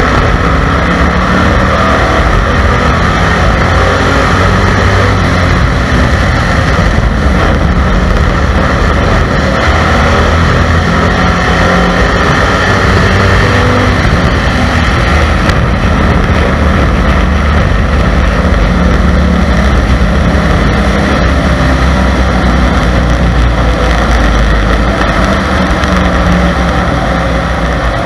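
Stock car's engine running hard at racing speed, heard from on board the car: a loud, steady engine note that rises and falls a little through the turns.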